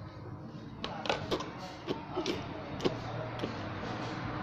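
Rice paper crinkling and crackling in several short, irregular clicks as it is folded and rolled by hand around a filling of fried fish and vegetables.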